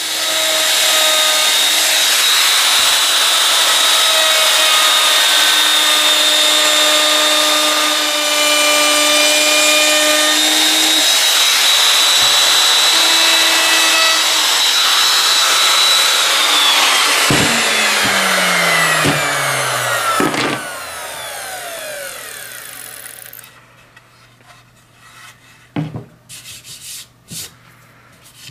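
Handheld router running at full speed and cutting a chamfer along the edges of a wooden board, with a steady high whine. About sixteen seconds in it is switched off and the whine falls in pitch as the bit spins down, with a few knocks as the router is set down and handled.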